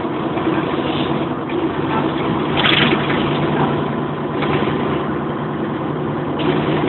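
Inside a Bova Futura coach on the move: the steady drone of its diesel engine mixed with road and tyre noise. A brief louder rush of noise comes a little under three seconds in.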